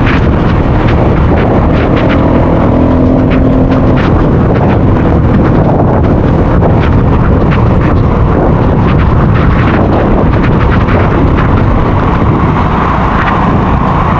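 Rain and wind noise hitting the built-in microphone of a bare DJI Osmo Action 4 camera while travelling in a vehicle in heavy rain. A loud, steady rumble runs underneath, with many sharp ticks from raindrops striking the camera.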